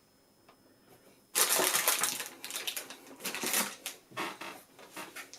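Packaging crinkling and rustling as it is handled, starting abruptly about a second and a half in and going on in uneven bursts.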